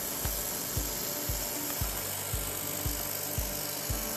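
Background music with a steady low beat of about two thumps a second, over a steady hiss.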